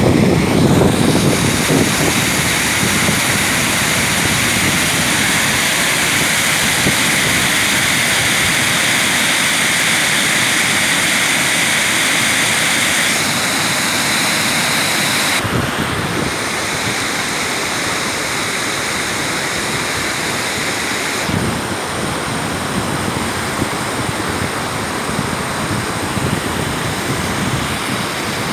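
Waterfall: a steady, loud rush of falling water, its tone changing abruptly twice.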